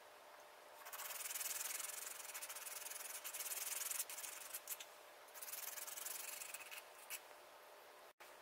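Hand sanding the edge of a thin wooden model panel with a small sanding stick: rubbing strokes from about a second in to about four seconds, then again for a second or two after a short pause.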